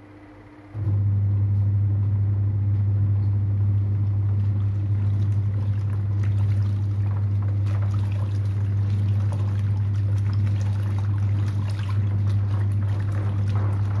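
Toshiba twin-tub washing machine's wash motor starting up about a second in after a brief pause, then running with a steady low hum while the pulsator churns sudsy laundry, water sloshing over it.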